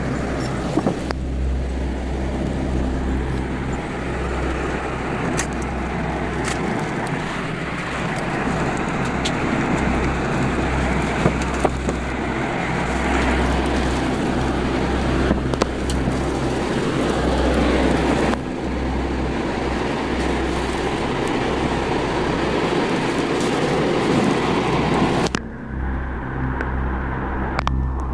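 Strong wind from a tornado at close range, rushing and buffeting the microphone in a pulsing low rumble, with scattered sharp clicks and knocks. The sound changes abruptly near the end.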